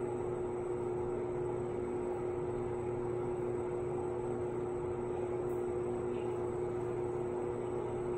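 A steady mechanical hum with one constant mid-pitched tone over a faint even hiss.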